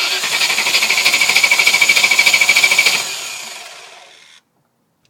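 V8 engine being cranked by its starter motor: a fast, even pulsing whirr that fades over the last second or so and stops about four and a half seconds in without the engine firing, the no-start fault.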